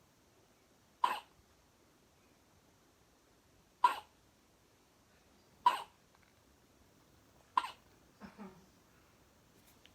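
Newborn baby hiccuping in her sleep: four short, sharp hiccups about two seconds apart, then a softer, lower little sound near the end.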